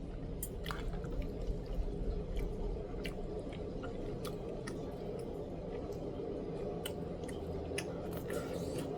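Chewing and wet mouth sounds of someone eating braised chicken: irregular soft clicks and smacks over a steady low background hum.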